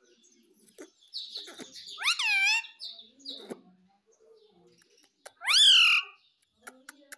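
Indian ringneck parrot calling: two loud, high calls that sweep up and fall away, about two seconds in and again about five and a half seconds in, with softer chattering between.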